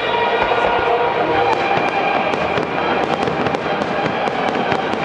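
Fireworks display going off continuously: a dense, steady crackling and popping of many bursting shells, with no single loud bang standing out.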